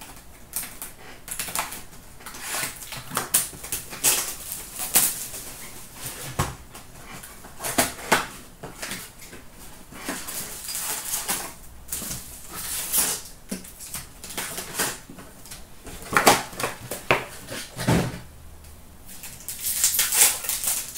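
A cardboard box of hockey card packs being opened by hand and the packs handled: irregular crinkling and rustling of cardboard and pack wrappers, with a couple of dull knocks.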